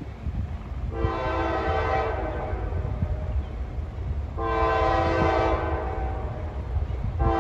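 Diesel locomotive air horn of an approaching CSX freight train sounding two blasts of about a second each, a third starting right at the end, over a low rumble that grows louder as the train comes closer.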